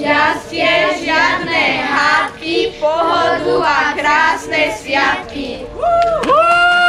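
A group of young children singing together in short phrases, ending in one long held note from about six seconds in.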